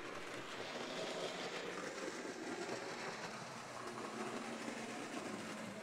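Bachmann HO scale Origin James model locomotive running along the layout track, a faint steady whir of its electric motor and wheels on the rails.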